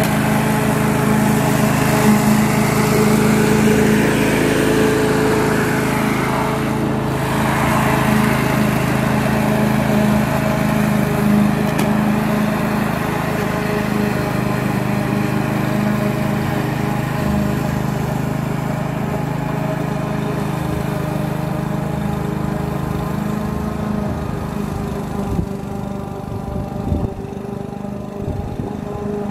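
Duricut 820 walk-behind lawn mower's 159cc single-cylinder four-stroke petrol engine running steadily while cutting grass, slowly growing fainter as the mower is pushed away.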